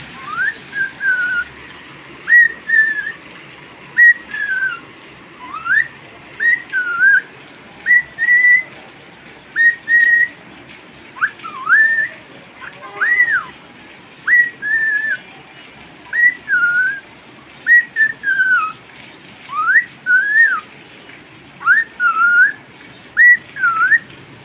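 Cockatiel whistling short rising and falling notes, mostly in pairs every second or two, over a steady faint background hiss.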